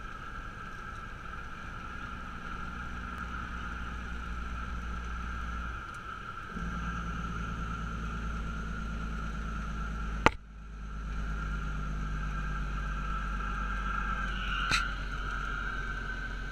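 A 1998 Kenworth truck's diesel engine and road noise droning steadily inside the cab while driving. The engine drone dips briefly about six seconds in and picks up again, and a single sharp click about ten seconds in is followed by a moment of quiet.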